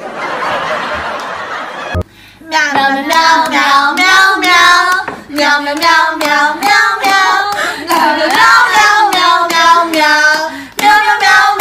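A hand rubbing a cat's fur: a soft, scratchy rustle for about two seconds. It then cuts to a high-pitched singing voice that runs on with short breaks.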